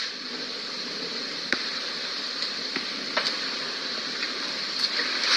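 Steady background hiss with a few faint, sharp clicks scattered through it, about one and a half and three seconds in.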